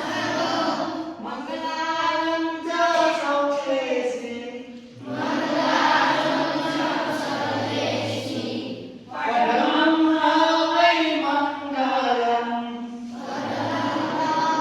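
A group of children chanting a prayer together in unison, in phrases of about four seconds with short breaths between them.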